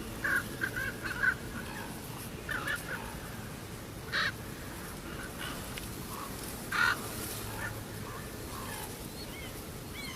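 Short, harsh bird calls: a quick run of notes near the start, then single calls about two and a half, four and seven seconds in, with a few faint chirps near the end.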